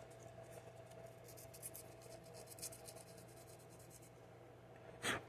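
Faint, rapid scratching of hands working on plastic RC beadlock wheel parts, then one sharp click about five seconds in.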